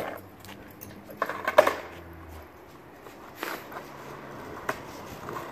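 Skateboard knocking on street asphalt: a few sharp clacks of the deck and wheels hitting the ground, the loudest about a second and a half in, with fainter knocks later.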